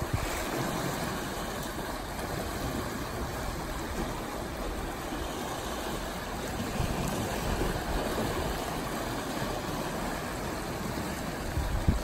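Sea waves washing and splashing over a rocky shore, a steady rushing surf with no break.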